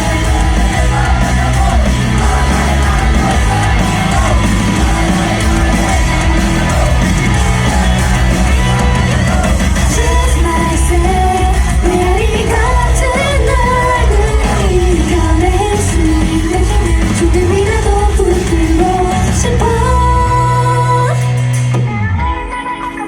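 Live idol pop song: a loud backing track over a hall's PA with female voices singing. The track stops near the end.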